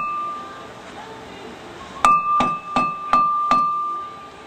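Hammer blows on a metal brake part, each one ringing with a clear metallic tone. After a quieter stretch, five quick blows come about a third of a second apart, then the ring fades.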